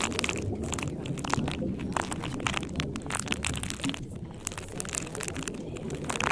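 Steady background ambience: dense, irregular crackling over a constant low rumble.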